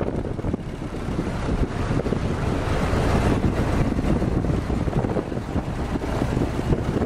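WWII Jeep on the move: its four-cylinder engine runs steadily under a heavy, continuous rush of wind on the microphone.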